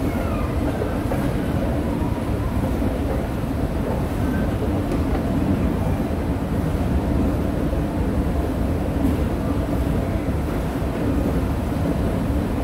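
Ascending subway-station escalator running, a steady low mechanical hum that holds constant throughout.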